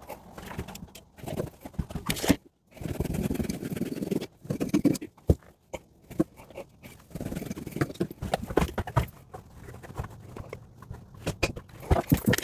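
Rockwool insulation being handled and fitted into a stud wall: irregular scraping and rustling with scattered sharp knocks and clicks.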